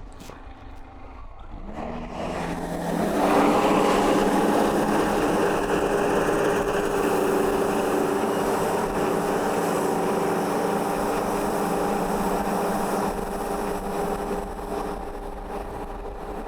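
Band sawmill spinning up about two seconds in, then running steadily at one pitch as it saws through a log.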